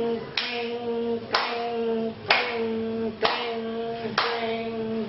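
A pitched object struck about once a second, six times, each sharp hit ringing on in a steady tone that stops just before the next strike, like an alarm signal being beaten out.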